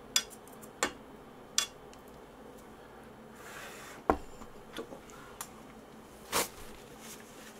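Chopsticks and noodles clinking against a bowl and a metal pot as ramen is served out: scattered light clicks, one firmer knock about four seconds in, then one short noisy mouth sound near the end as noodles are taken in.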